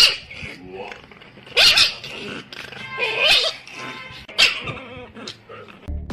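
A dog vocalizing in three short calls whose pitch bends up and down, a second or so apart.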